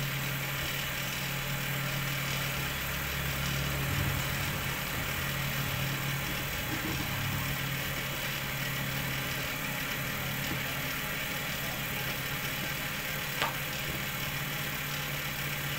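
Cotton candy machine running: its motor spins the jumbo cast-aluminium spinner head with a steady hum over a steady hiss. A single short click sounds near the end.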